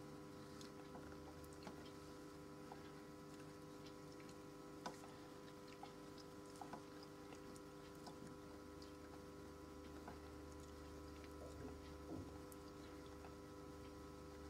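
Near silence: room tone with a faint steady hum and a few faint scattered small clicks, the sharpest about five seconds in.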